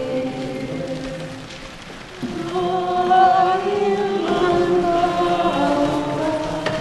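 A group of voices singing a slow, chant-like melody together in long held notes; the singing fades briefly about two seconds in, then comes back louder.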